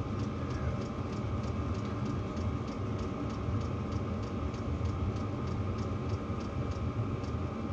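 Steady low mechanical hum with a faint, fast, even ticking over it, about four ticks a second.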